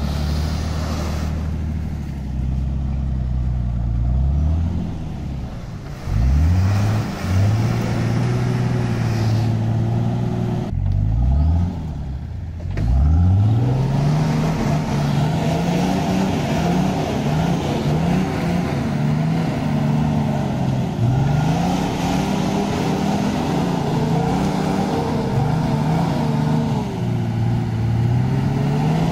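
Off-road 4x4's engine running and revving up and down again and again, with a few quick surges in pitch in the first half.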